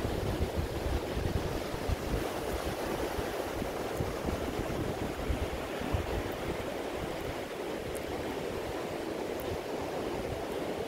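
Steady rush of ocean surf breaking on a sandy beach, with wind buffeting the microphone in a low, uneven rumble.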